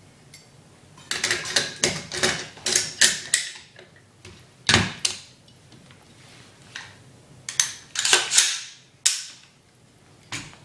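Metal clicks and clacks of a Spikes Tactical AR-15's parts being handled and fitted: a quick run of clacks about a second in, one sharp clack near five seconds, and another run around eight to nine seconds.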